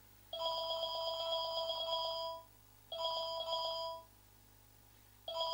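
A telephone ringing: a trilling ring tone in bursts, the first about two seconds long, a shorter one about three seconds in, and another starting near the end.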